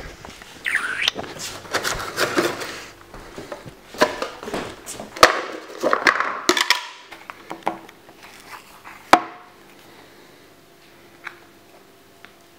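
Handling noises from a plastic food tub: a string of knocks, clicks and rustles as it is set down and its lid is pulled off, with two sharp snaps about five and nine seconds in. After that only a faint steady hum with an occasional small tick.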